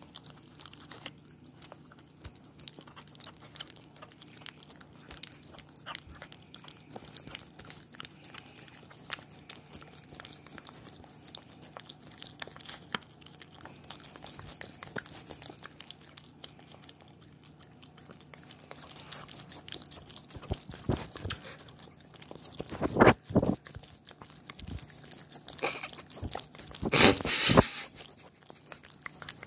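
A puppy licking peanut butter off a phone's camera, its tongue and mouth working right against the microphone in a quick run of wet clicks and smacks. Two louder, longer bursts of rubbing noise come about three quarters of the way through and near the end.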